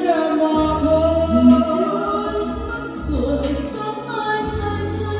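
Vietnamese karaoke song with a singer on the microphone, played through a Star Sound line array speaker system, over a steady pulsing bass line.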